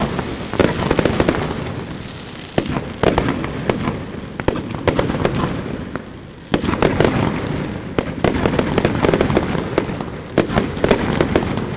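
Fireworks going off in a rapid string of sharp bangs and crackles, easing off briefly twice before building again.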